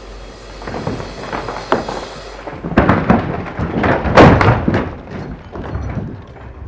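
Background music fades out, then a building wall collapses: a run of loud crashing thuds and cracks of falling timber, loudest about four seconds in, dying away near the end.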